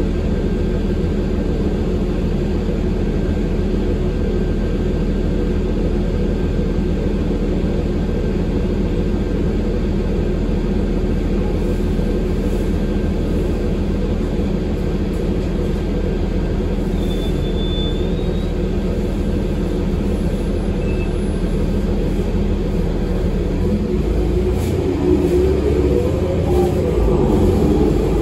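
Pace 2022 Eldorado National Axess bus heard from inside the cabin while under way: a steady engine and road rumble with a constant hum. Near the end, the engine pitch rises and falls twice and the sound gets slightly louder.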